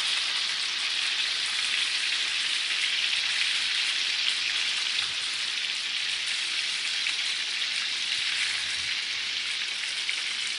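Chicken pieces frying in hot grease in a pan, a steady sizzle.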